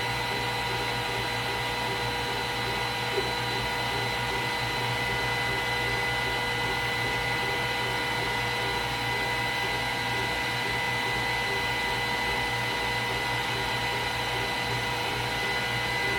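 Glowforge Plus laser cutter running a cut: its fans make a steady rush of air with several steady whining tones through it and a faint regular pulsing underneath.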